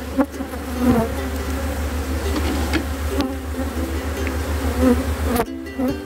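A honeybee colony buzzing around an opened hive as frames are moved across: a dense, steady hum of many bees with a few held tones. The colony is calm, not agitated, while the frames are handled gently without shaking.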